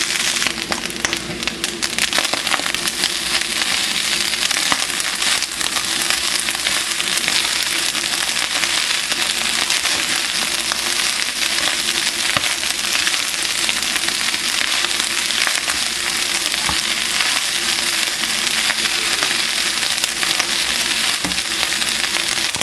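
Cooked rice with onion, shrimp, scallop and chicken liver frying in hot oil in a frying pan: a steady sizzle with constant small crackles as the water cooks off.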